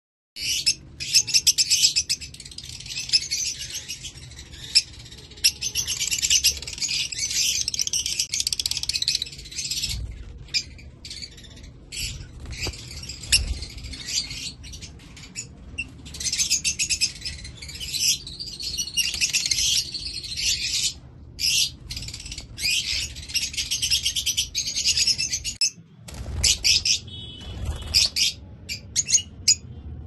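A flock of small caged parrots, lovebirds among them, chirping and chattering almost without pause in a dense, high-pitched twittering. The chatter breaks off for a moment about 26 seconds in.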